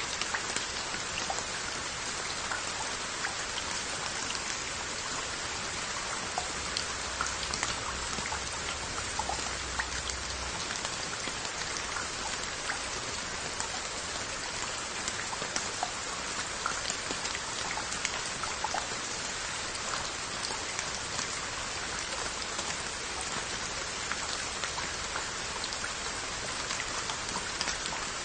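Steady rain falling on glazed earthenware onggi crocks and their lids, a constant hiss with many separate drops ticking sharply on the pottery.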